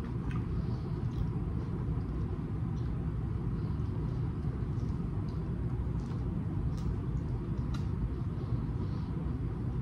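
Steady low rumble of background noise at an even level, with a few faint, sharp clicks, most of them between about six and eight seconds in.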